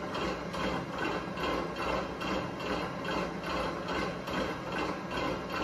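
Innofood stand mixer running at steady speed, its beater turning in the stainless steel bowl and creaming butter and icing sugar. Its motor hum carries a regular beat about two to three times a second.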